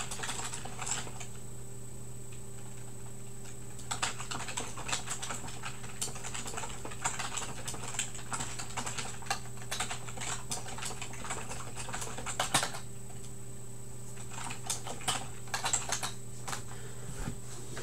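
Typing on a computer keyboard: several runs of quick clicks with short pauses between them, over a steady low electrical hum.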